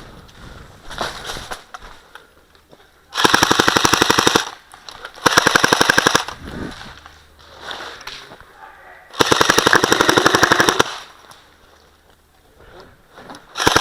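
Airsoft gun firing rapid full-auto bursts: four bursts of about a second and a half each, evenly spaced shots, the last starting near the end.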